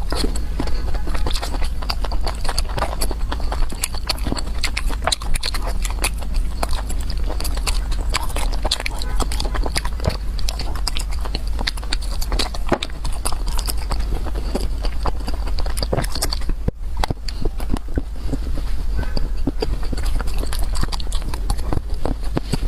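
Close-miked eating sounds: rapid wet chewing, smacking and slurping clicks of a person eating spicy food quickly, over a constant low hum.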